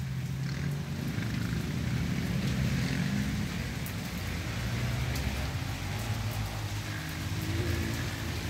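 Heavy rain falling steadily, an even hiss with a low steady hum underneath.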